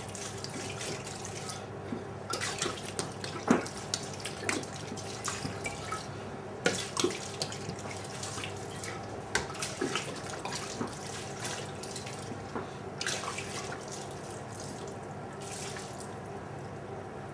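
Red wine (Beaujolais) poured from a bottle into a marinade of chicken pieces, a steady stream with irregular splashes.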